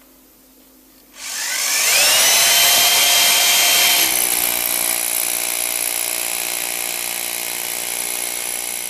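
Electric drill with a masonry bit boring into alabaster stone. It starts about a second in with a rising whine as the motor spins up, then runs steadily, easing off a little after about four seconds.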